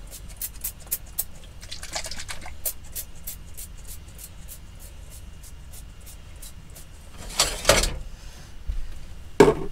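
A hand-held seasoning bottle is worked over a frying pan, making quick, evenly spaced clicks, about four to six a second. A louder clatter comes about seven and a half seconds in, and a sharp knock comes near the end.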